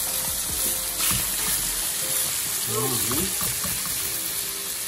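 Seasoned chicken pieces sizzling in hot oil and curry powder that has been burnt in the pot first, a steady frying hiss, while a metal spoon stirs them.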